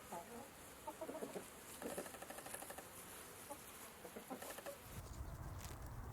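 Chickens clucking: short, soft, scattered calls. About five seconds in, a low steady rumble takes over.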